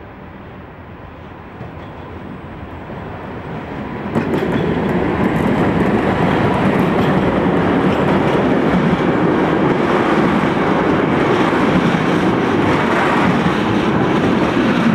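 A PKP Cargo ET22 electric freight locomotive approaches with a freight train, growing louder. About four seconds in it passes close. From then on the train of open freight wagons rolls by with a steady, loud rolling noise and scattered sharp clicks from the wheels on the rails.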